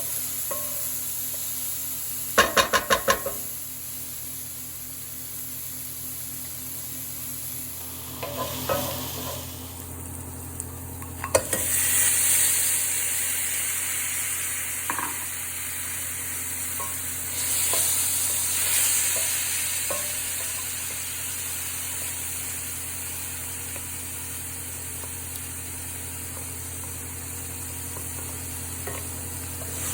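Food sizzling and frying in a pan while it is stirred, the sizzle swelling twice midway. A quick run of sharp taps comes about two and a half seconds in, with a few single knocks later, and a steady low hum runs underneath.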